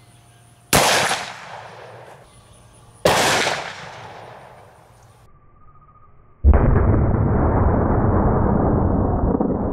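A 2.5-inch-barrel .44 Magnum revolver fired: a sharp report with a trailing echo about a second in, and a second report about two seconds later. From about six and a half seconds there is a loud, dense, low rumble that starts suddenly.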